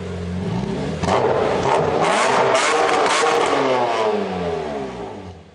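Car engine sound effect revving, louder from about a second in with its pitch sliding, then fading away near the end, with a few sharp crackles over it.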